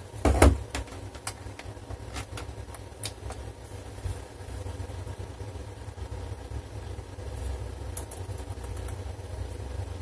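A laptop being plugged in and switched on: a sharp knock about half a second in, then a few faint clicks, over a steady low rumble.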